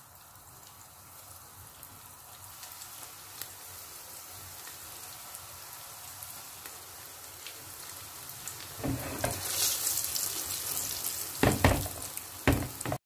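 Dough wedges frying in hot vegetable oil in a pan: a steady sizzle that slowly grows louder as more pieces go in, with a burst of louder crackling about nine seconds in. Two sharp, louder sounds come near the end, and the sound cuts off suddenly.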